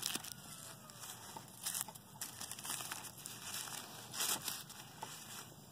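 Wrapping crinkling and rustling in short, irregular bursts as a small ribbon-tied bundle is handled and unwrapped.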